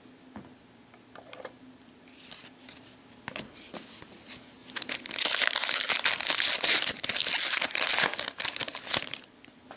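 Trading-card pack wrapper being torn open and crinkled: a few light crackles at first, then a dense spell of crinkling over the second half that stops shortly before the end.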